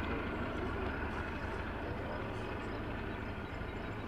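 Freight train rolling along the track in the distance: a steady low rumble.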